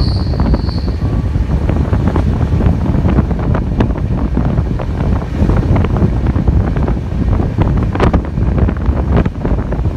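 Wind buffeting the microphone over the rumble of a moving passenger train, with scattered clicks and rattles from the coaches and the track.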